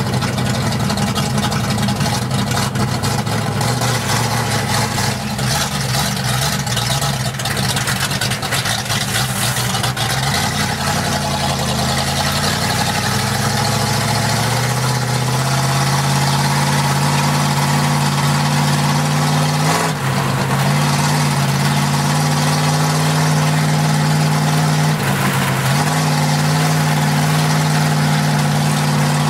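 Race car's Oldsmobile 350 V8 heard from inside the cabin, running hard on track. Its pitch wavers up and down at first, then holds high and steady, dropping briefly twice near the end.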